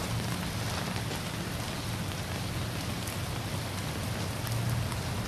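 Steady hiss of rain falling, with a low rumble underneath.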